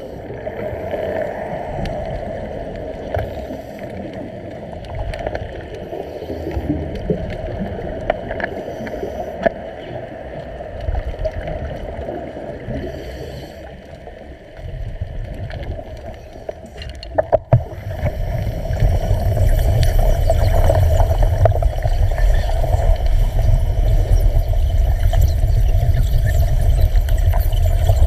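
Underwater bubbling and gurgling while the cutting torch is idle; about two-thirds of the way in come a couple of sharp clicks, then a louder, steady low rumble with bubbling as the underwater cutting torch burns, throwing sparks.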